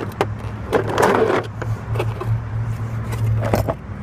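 A hard plastic tool case for a serpentine belt tool is handled and scraped against a plastic splash shield, with several short clicks and knocks and a longer scrape about a second in. Under it runs a steady low hum.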